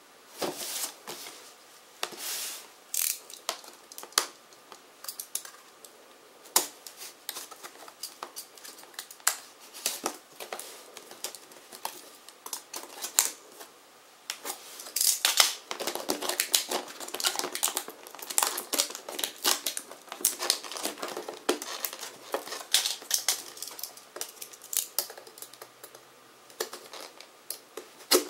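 Hands handling and opening a taped cardboard box: irregular taps, knocks and rustling scrapes of cardboard, with a cutting tool working at the tape seal. The handling gets busier and more continuous about halfway through.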